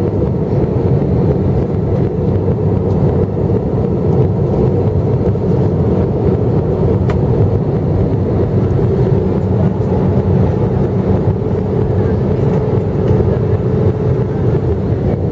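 Steady in-flight cabin noise of an Airbus A321 jet airliner: a low rumble from its jet engines and air rushing past the fuselage, heard inside the cabin beside the wing. A faint steady hum joins it about halfway through.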